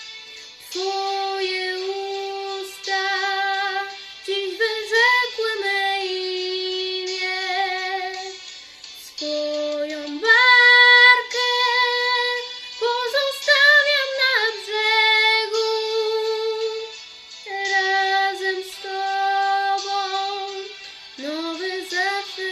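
A girl singing a slow melody solo with no accompaniment, holding long notes and sliding between pitches.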